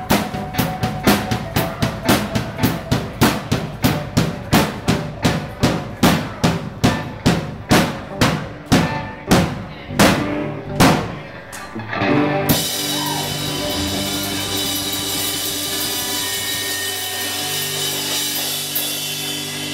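Live rock band with drum kit and electric guitars. The drums hit on every beat, about three a second, then slow down near the middle. The band then holds a final chord that rings on for the second half.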